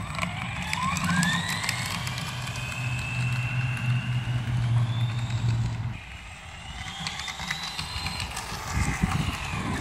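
Motor of a radio-controlled car whining as it speeds up: the pitch climbs steeply for about two seconds and holds high, drops away about six seconds in, then rises and falls again near the end. A low steady hum sits under it for the first six seconds.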